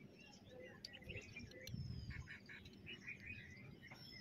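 Faint bird chirps and calls, including one short falling whistle, with a few light clicks.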